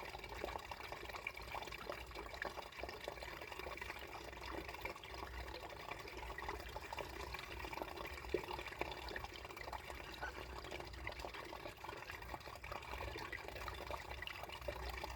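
Water running beneath ice: a steady flow scattered with many small drips and ticks, over a faint low hum.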